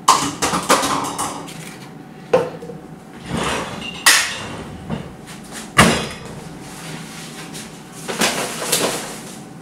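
Metal objects clanking and knocking as they are handled: a few sharp knocks a second or two apart, with rattling and clatter between them.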